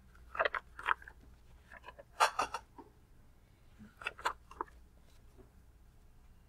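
Pages of a thin, glossy magazine-style paperback being turned and handled: three short bursts of crinkly paper rustling, about two seconds apart.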